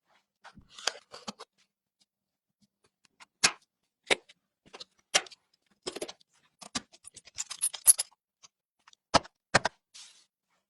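Hardware being handled during a PC build: a dozen or so separate sharp clicks and taps, with a short cluster of rustling scrapes a little after the middle. The loudest click comes about three and a half seconds in.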